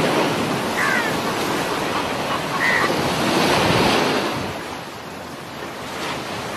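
Surf washing onto a beach: waves rush and foam, with one wave surging up loudest about three to four seconds in and then drawing back. Two short high chirps sound over the water in the first three seconds.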